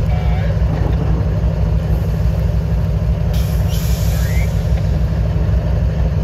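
CSX diesel-electric freight locomotive running close by, its engine giving a loud, steady, deep throb.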